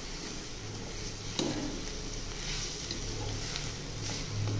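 Spice masala sizzling in oil in a steel kadai over a low gas flame while a spatula stirs and scrapes it, with one sharp knock of the spatula against the pan about a second and a half in.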